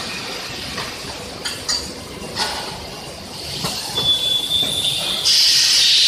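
Battery-factory machinery and handling noise: scattered clicks and clatter of metal parts on a steel roller conveyor, a steady high squeal starting about four seconds in, and a loud hiss near the end.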